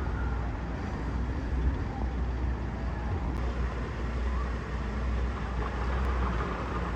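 Steady low rumble of outdoor background noise, like distant road traffic, with faint scattered higher sounds over it.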